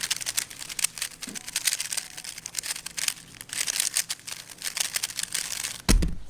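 3x3 Rubik's Cube being turned fast in a speedsolve, a dense run of quick plastic clicks and rattles as the layers snap round. About six seconds in comes one loud thump.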